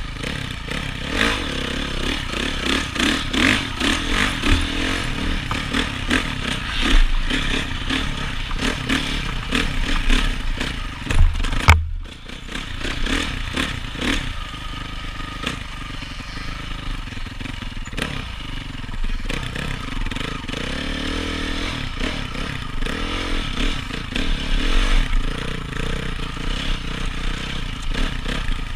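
A 2014 Honda CRF450's single-cylinder four-stroke engine revs up and down as the dirt bike is ridden on a motocross track, heard from the rider's helmet. About twelve seconds in there is a sharp knock, and after it the engine runs somewhat quieter.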